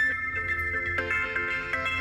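A Motorola Moto C ringtone playing: a melody of short notes, changing about four times a second.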